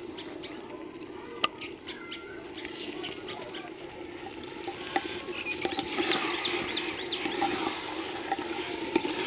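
Mutton pieces sizzling as they start to fry in masala in a hot clay handi, stirred with a metal spatula that clicks and scrapes against the pot. The sizzle grows louder about three seconds in and again past the middle.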